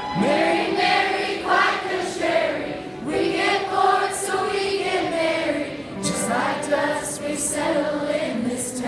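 Live country song: a woman singing into a microphone over a band with banjo and steel guitar.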